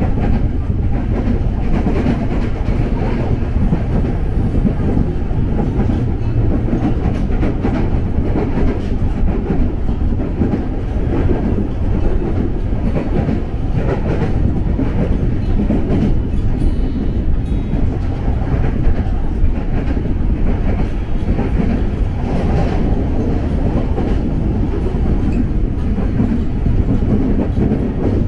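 KRL Commuter Line electric multiple-unit train running along the track, a steady loud rumble of wheels and running gear.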